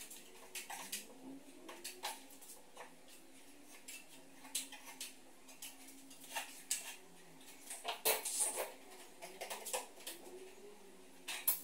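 Scattered scrapes and light clinks of a hand tool working over a plasterboard (BA13) counter frame, in short irregular strokes that come closer together about two-thirds of the way through.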